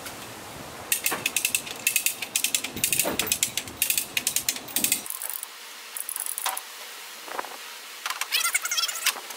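A 2-ton come-along being ratcheted by its handle, giving runs of quick pawl clicks as it hoists a pickup's bed by rope. The clicking is dense for the first few seconds and sparser after about five seconds.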